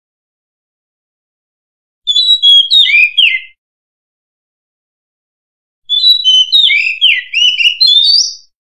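Oriental magpie-robin singing: two phrases of clear, varied whistled notes sweeping up and down, a short one about two seconds in and a longer one from about six seconds in, with silence between.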